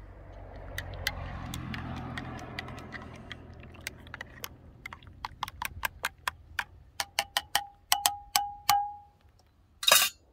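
Teaspoon stirring coffee in an enamel mug: a soft swishing at first, then the spoon clinking against the mug's sides about three times a second, the last few taps ringing briefly. A short, louder rustle or knock near the end.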